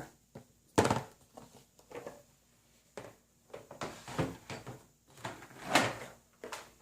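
Small toy objects and a sound box being handled and set down on a table: a string of uneven knocks and clatters, the loudest about a second in and again near the end.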